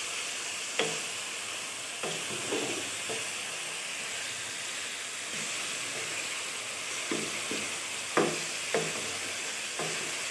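Mutton pieces sizzling as they fry in oil with onions in a kadhai, with a steady hiss. A wooden spatula stirs the meat, knocking and scraping against the pan a few times.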